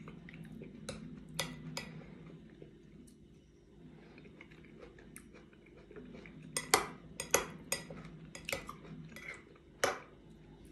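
Metal spoon clinking against a ceramic bowl while scooping fruit salad. There are a few sharp clinks at first, then a quick run of clinks about seven seconds in.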